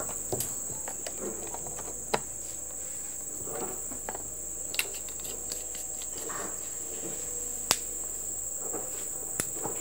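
A steady, high-pitched drone of insects, with a few sharp clicks and soft rustles from a cable being handled and a bulb's plug pushed into a small battery pack.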